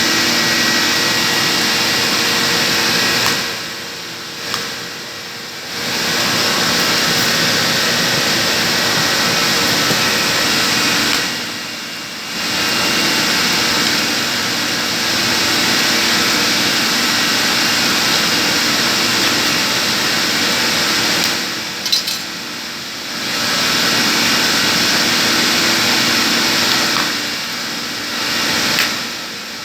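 A motor-driven tool runs steadily with a loud hiss-like whine. It eases off briefly four times, about every eight seconds, then picks up again.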